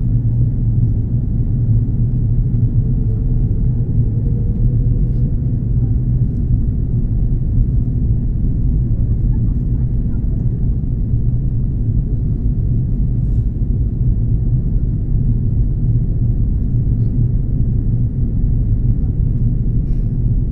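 Airbus A330 airliner cabin noise: a steady low rumble of engines and airflow. A faint rising tone can be heard about three seconds in.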